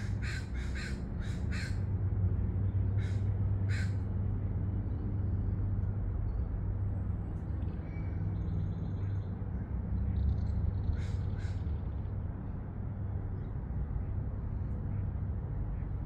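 A crow cawing in short harsh calls: a quick run of four at the start, two more a couple of seconds later and a pair about eleven seconds in, over a steady low background rumble.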